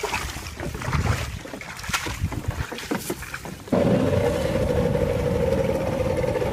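Irregular knocks and rustling, then about four seconds in a small boat motor comes in abruptly and runs steadily with an even drone.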